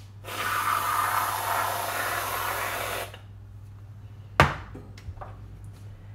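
Aerosol can of squirty whipped cream spraying, a steady hiss for about three seconds that cuts off sharply. A single sharp knock follows about a second and a half later.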